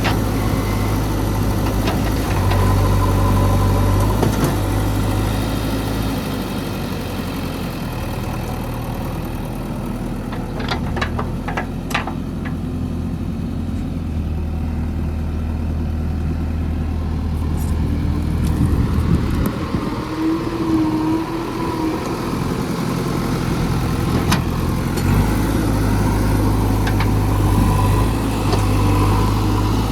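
Diesel engine of a JCB 3DX backhoe loader running under varying load, its note swelling and easing as the machine works. A few sharp knocks come around the middle, and a brief higher whine follows a little later.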